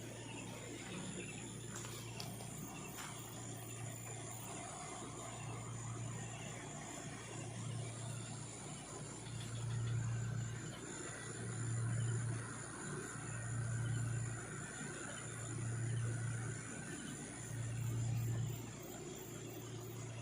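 A low, deep hum from the forest at night that swells and fades about every two seconds through the second half, over a steady high drone of night insects.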